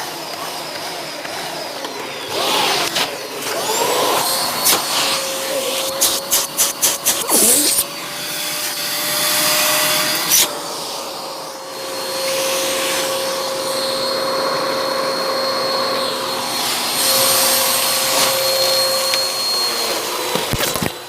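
A 750-watt vacuum cleaner running, its motor giving a steady rushing hiss with a held whine, while it is handled: a quick run of about seven clicks about six seconds in and a sharp knock about ten seconds in.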